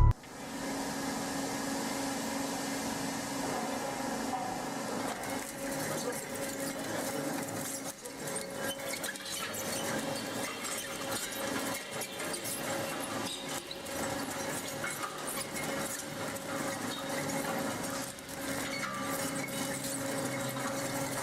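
Four-shaft industrial shredder running, a steady motor and gearbox hum under continual irregular crunching, clinking and cracking as it tears through tangled scrap.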